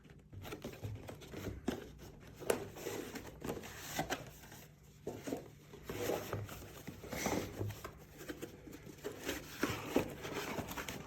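A cardboard product box being opened and its packaging handled: irregular short rustles, scrapes and clicks of cardboard and paper.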